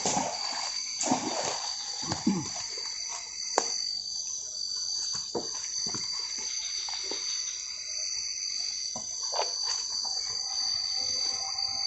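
Night insects, crickets or similar, singing in a steady high-pitched chorus of two thin unbroken tones, with scattered short knocks and rustles over it.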